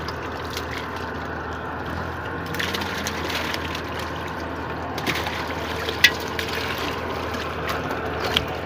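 Water splashing and trickling as a net of small fish is lifted and handled in shallow water at a bamboo fence trap. Underneath runs a steady low hum, and a sharp knock comes about six seconds in.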